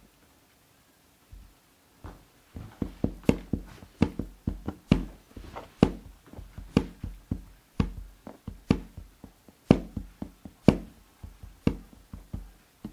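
Knocking and tapping on a hard surface, starting about two seconds in: a strong knock about once a second with lighter taps between, in a loose rhythm.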